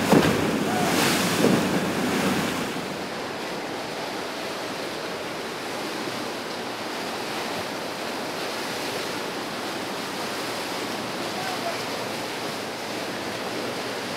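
Choppy canal water splashing and rushing from boat wakes, with wind buffeting the microphone. Louder splashes for the first couple of seconds, then a steady, even rush of water.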